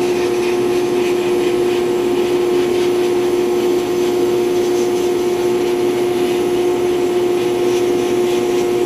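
Glass-bead blast cabinet in use: compressed air and 80-grit glass beads hissing steadily from the blast gun onto a small metal bracket, over a constant machine hum.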